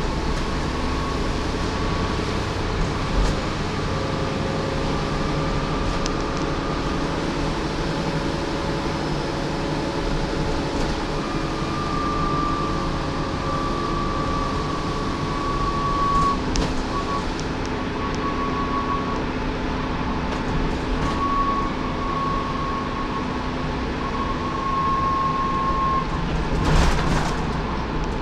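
Dennis Trident 2/Plaxton President double-decker bus under way, heard from inside the upper deck: steady diesel engine and road noise, with a high whine that comes and goes. Faint clicks and rattles are scattered through it, and a brief louder burst of noise comes near the end.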